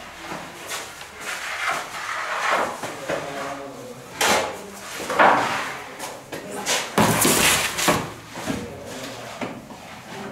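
Metal sheet pans clattering and scraping as baked loaves are pulled out of a bread oven and set down on a steel worktable: a string of knocks and scrapes, the loudest a clatter about seven seconds in.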